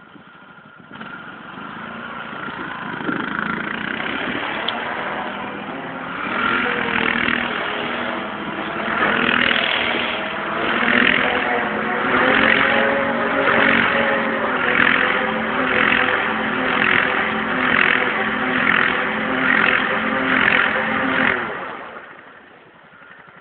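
Honda Rincon ATV's single-cylinder engine held at high revs while it spins donuts in snow. Its sound swells and fades about once every 0.8 s as it circles. The engine builds up over the first few seconds and dies away near the end.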